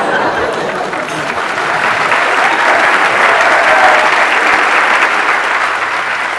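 Large audience applauding: dense, steady clapping that swells a little through the middle and eases off near the end.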